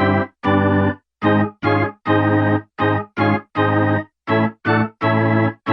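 Background music of organ-like keyboard chords, played as short held chords with brief silences between them, about two a second.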